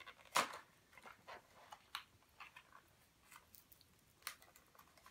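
Hands working a small plastic toy figure free of its packaging: scattered plastic clicks and crinkles, the sharpest click about half a second in.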